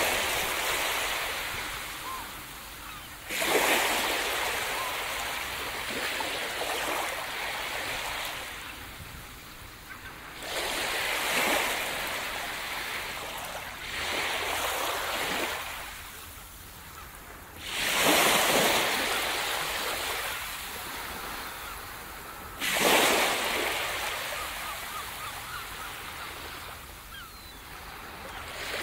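Small waves breaking on a sandy beach and washing up the shore: six surges a few seconds apart, each rising quickly and fading away in a long hiss.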